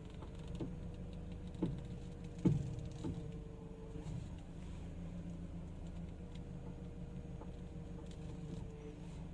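Small SUV engine idling with a faint steady whistle-like whine and a few short knocks in the first three seconds.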